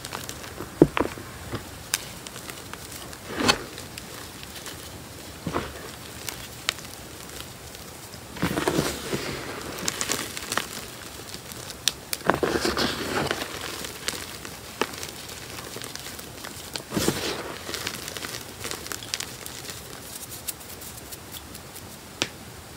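Gym chalk crushed and crumbled between fingers in a tray of loose chalk powder: scattered soft crunches and crackles, with three louder bursts of crunching, about a third of the way in, just past halfway and about three-quarters through.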